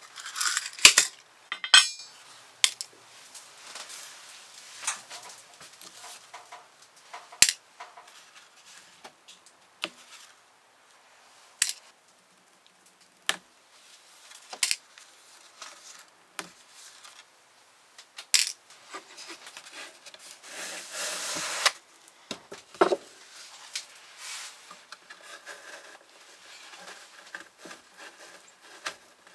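Scattered sharp taps, clicks and light clinks of hand-work at a wooden bookbinding sewing frame, with a longer rubbing sound about twenty seconds in and a dull knock just after.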